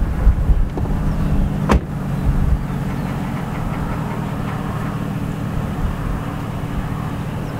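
A vehicle engine idling with a steady low hum. Wind buffets the microphone for the first two or three seconds, and there is one sharp click a little under two seconds in.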